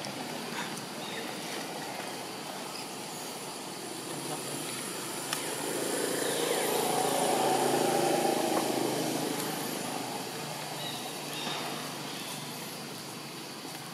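A motor vehicle passing: its engine noise swells up about halfway through and fades away a few seconds later, over steady outdoor background.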